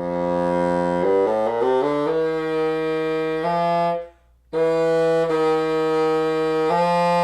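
Bassoon played to test a flat reed whose tip has just been clipped back: a low held note, a quick rising run of notes, then long held notes, with a short breath about four seconds in.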